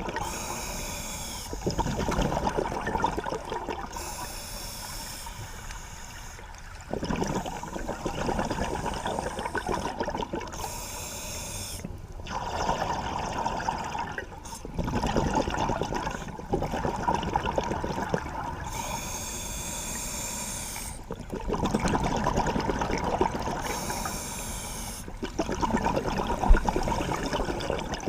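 Scuba regulator breathing underwater. Each inhalation brings a short hiss through the regulator, and each exhalation a longer burst of rushing, bubbling noise, in a slow repeating cycle of about five breaths.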